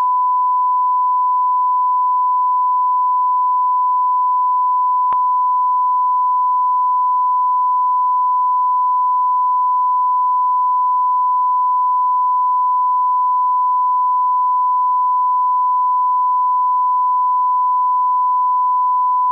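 Continuous 1 kHz line-up reference tone, a pure steady beep held at one pitch and level. It is played with colour bars at the head of a broadcast master so that audio levels can be set.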